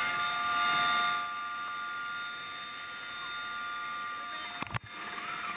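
Rescue helicopter heard from inside the cabin: a steady whine of several high tones over a rushing hiss, louder in the first second, with a brief click and dropout near the end.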